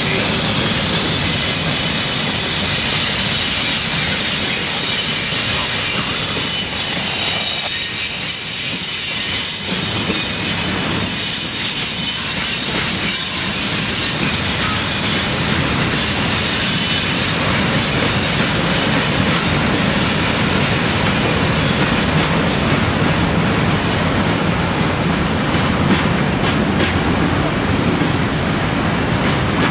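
Freight cars (covered hoppers and tank cars) rolling steadily past: continuous wheel-on-rail noise with clickety-clack over the rail joints and some high-pitched wheel squeal.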